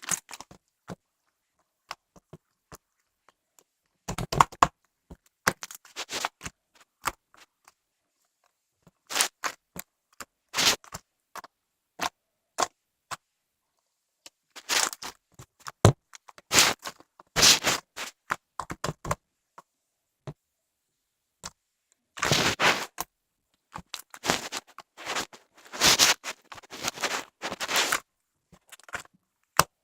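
Slime being squished, pressed and stretched by hand, giving irregular bursts of crackling clicks and small pops with quiet gaps between them.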